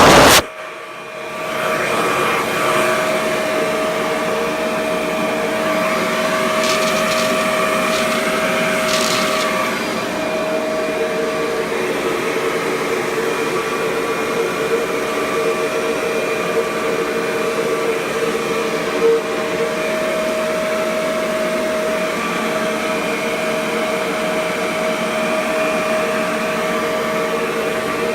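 1993 Kirby G4 upright vacuum running in blower mode, its motor whining steadily as air rushes out through the hose. The sound dips just after the start and builds back up within a couple of seconds, then runs on evenly.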